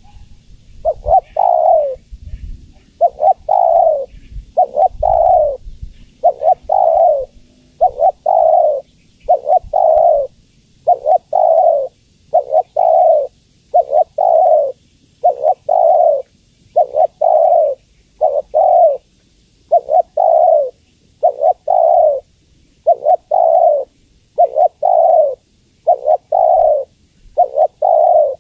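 Female spotted dove cooing over and over, each phrase a short note followed by a longer one, repeated about every one and a half to two seconds: a call to draw in male doves.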